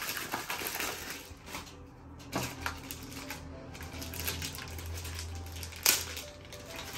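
Plastic packaging bags rustling and crinkling as they are handled and opened, with many small clicks and one sharp click near the end.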